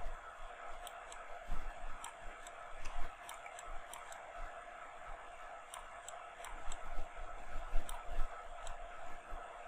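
Scattered light clicks of computer mouse and keyboard use, coming in short irregular runs, over a steady background hum, with a few dull low thumps.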